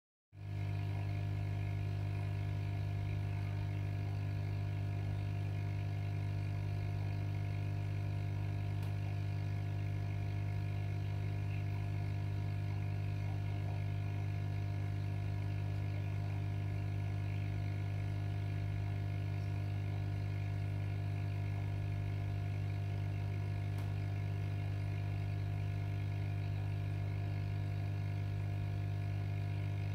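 Steady low electrical hum with fainter higher overtones, unchanging throughout.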